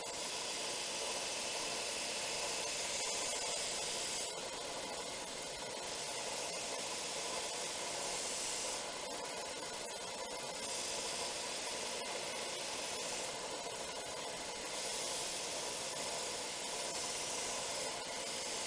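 Belt grinder running, with a steel knife blade held against the abrasive belt at the contact wheel. It makes a steady hiss that brightens and drops back every few seconds as the blade is pressed on and eased off in repeated passes.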